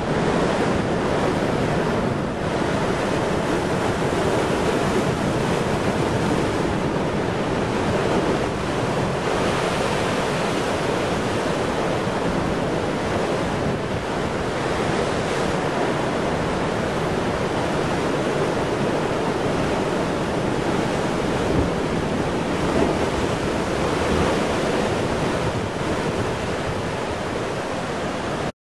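Heavy ocean surf surging and breaking into a narrow rocky inlet, with seawater pouring back off the rock ledges in cascades; a continuous, steady wash of churning water.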